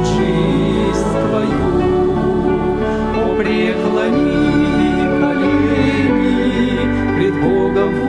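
Background music: a slow Christian worship song, a sung voice over sustained instrumental chords.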